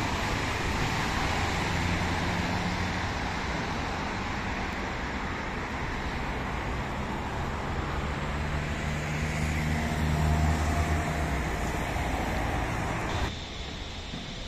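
Road traffic on a wide multi-lane avenue: cars passing with engine and tyre noise, swelling as a vehicle goes by close about ten seconds in. The sound drops off abruptly near the end.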